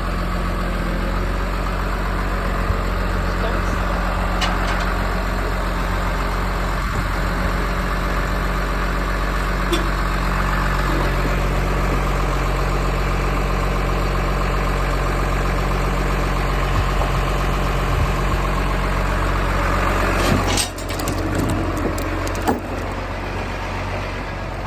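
A vehicle engine running steadily with a low, even hum. About twenty seconds in, the sound drops off abruptly, and a few sharp clicks or knocks follow near the end.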